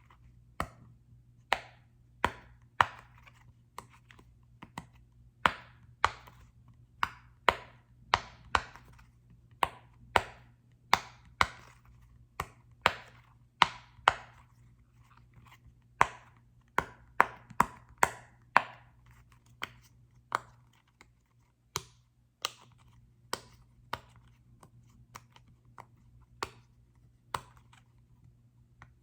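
Irregular sharp taps and clicks on a small soccer-ball-shaped object, about one or two a second, over a faint steady low hum.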